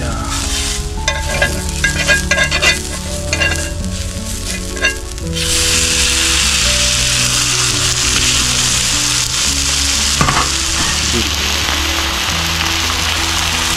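Tomahawk steak flipped onto a hot griddle pan, the fat and juices sizzling. The sizzle surges about five seconds in, as the meat lands back on the pan, and then holds steady. There are a few light clicks before it.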